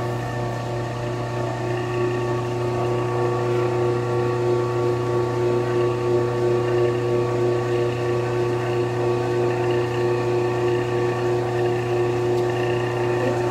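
Allwin DPWL12V wood lathe, set up vertically as a drill press, running at steady speed as its drill bit bores into a turned wooden workpiece: an even motor hum with several steady higher tones.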